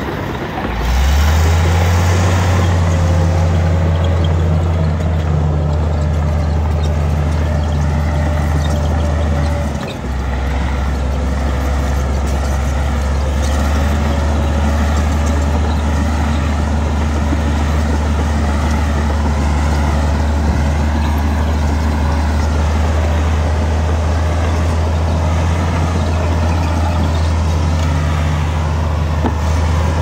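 Diesel engine of a heavy earthmoving machine running under load with a steady low rumble. It dips and revs back up about a second in, and briefly drops and shifts its note about ten seconds in.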